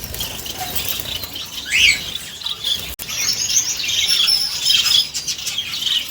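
Small cage finches, Gouldian and Bengalese finches, chirping and twittering with many short high calls, busiest in the second half, along with the fluttering of wings as they bathe. The sound drops out for a moment about halfway through.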